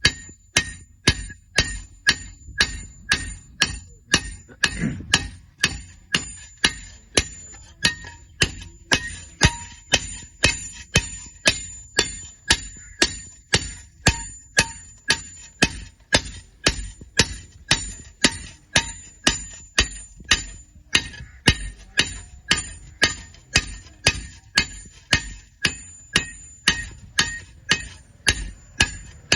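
Hammer striking an iron piece in a steady rhythm of about two blows a second, each blow ringing with a metallic tone.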